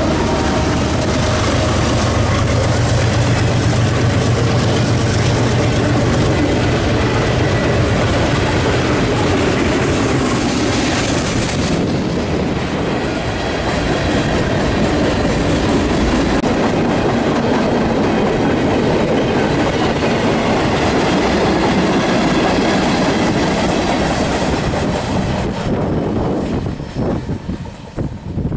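Freight train passing close by, led by BNSF GE ES44C4 diesel locomotives: the trailing locomotive's engine drones for the first ten seconds or so, then tank cars and other freight cars rattle and clack past over the rail. Near the end the last cars go by and the sound drops away quickly.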